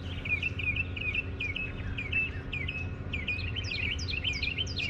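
Birds chirping in quick, repeated short notes, several calls overlapping, over a steady low rumble.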